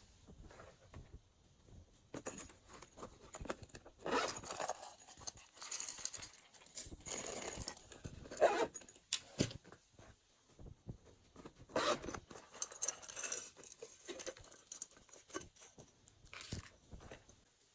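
Hands adding mix-ins to trays of glossy slime: a zipper pouch being unzipped and handled, and small beads dropped from a hand, in several short rustling, crinkling bursts.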